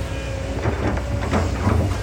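Kobelco hydraulic excavator at work: its diesel engine runs steadily under load while irregular metallic clanks and scrapes come from the machine as it digs.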